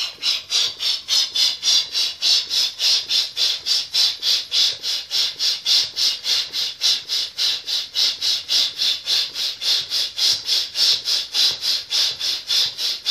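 Handheld balloon pump worked quickly, each stroke a hissing rush of air at about four a second, as a latex balloon on its nozzle fills.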